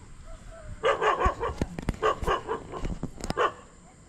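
A dog barking: a run of short, quick barks starting about a second in, with a few sharp clicks among them.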